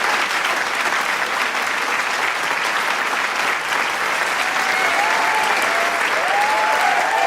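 Large crowd applauding, a dense, steady wash of clapping. From a little past halfway, voices in the crowd start cheering and calling out over the applause, growing toward the end.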